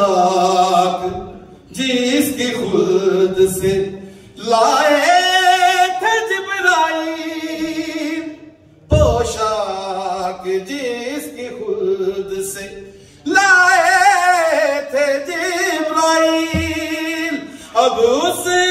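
A man's voice singing a mourning elegy without accompaniment, through a microphone. He holds long, wavering notes in phrases of a few seconds, each broken by a short breath.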